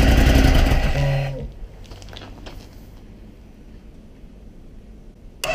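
Guitar music for about a second and a half, then it drops away, leaving the low, steady running of the Ducati Scrambler's air-cooled L-twin idling after a cold start at −22 °C. The music cuts back in abruptly near the end.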